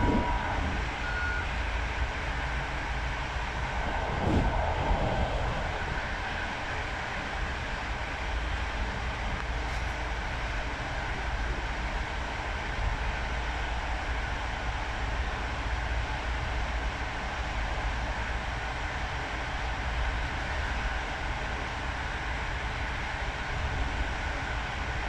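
Steady rumble of an Intercity passenger train running along the track, heard from inside the carriage, with a brief louder swell about four seconds in.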